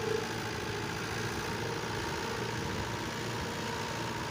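Farm tractor's diesel engine running steadily while it slowly pulls a fully loaded trolley.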